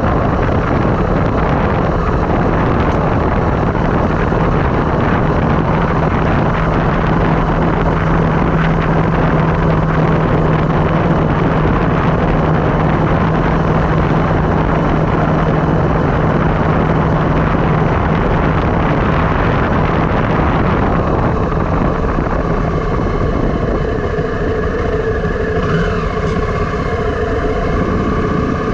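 Steady rushing wind and road noise on a helmet- or handlebar-mounted action camera while riding downhill. About two-thirds of the way through the rush eases, and a few steady tones come through.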